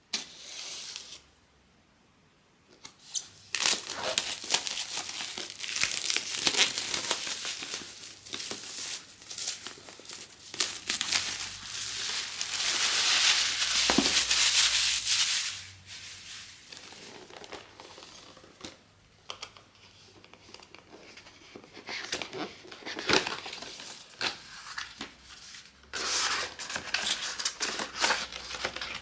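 Blind-box packaging being crinkled and torn open by hand. After a short quiet spell, a long stretch of dense crinkling builds to its loudest about halfway through, then thins out into scattered crinkles and clicks.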